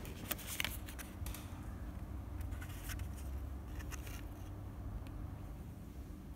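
Clear plastic wrapping and a paper tag on a cookie gift box crinkling and rustling as it is handled, in a few short, irregular crackles over a low steady hum.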